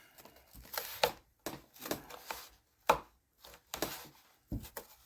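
Several sharp wooden knocks and clicks spaced a second or so apart, with softer handling noise between them: balsa parts and tools being set down and fitted on a workbench during a glue-up.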